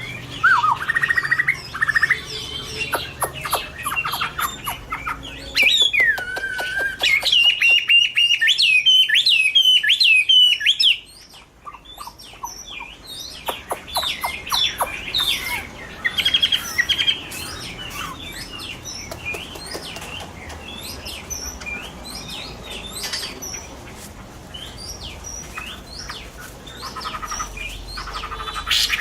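Chinese hwamei (Garrulax canorus) singing loud, varied whistled phrases that rise and fall in pitch. The song breaks off suddenly about eleven seconds in, followed by quieter, shorter notes.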